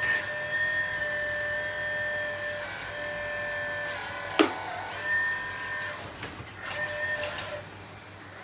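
A 1/12-scale RC excavator whining as its boom and arm are worked from the transmitter. The whine starts and stops in short spells, and a sharp click sounds about four and a half seconds in.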